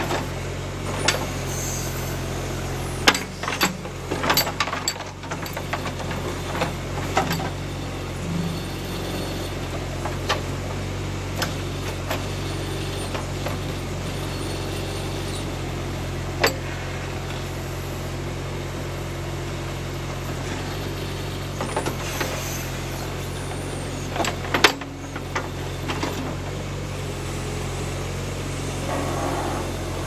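John Deere 310A backhoe's engine running steadily as the bucket works through the mud around a stump. Scattered knocks and clanks from the bucket and arm come in a cluster a few seconds in and another near the end.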